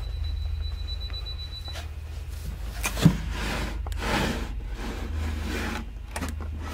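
Wooden drawer of an old chest of drawers being handled and pulled open: rustling and scraping, with a sharp click about three seconds in, over a steady low hum. A thin high tone holds for the first two seconds, then stops.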